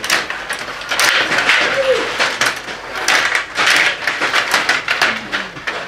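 Stiga table hockey game in fast play: the control rods rattle and clack as they are slid and spun, and the plastic players knock against the puck and the board, a dense run of sharp clicks and clatter.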